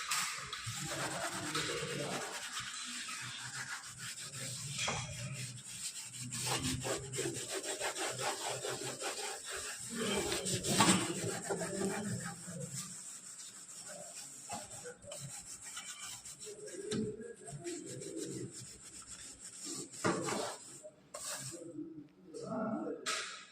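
Scrubbing a hard surface in quick back-and-forth strokes, heavy and continuous at first, then lighter and more broken.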